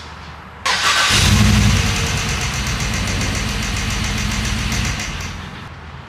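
Chevrolet Silverado's 5.3 L V8 cranked over on the starter for about four seconds, coming in suddenly just after the start and dying away near the end. This is a crank test for in-cylinder pressure on misfiring cylinder 1.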